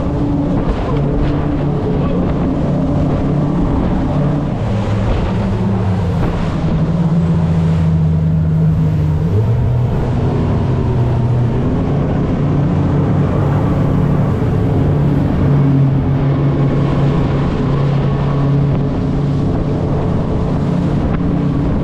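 Twin outboard engines of an Aquila 28 Molokai power catamaran running at high speed, a steady drone whose pitch shifts slightly a few times, with the rush of wind and water spray off the hull.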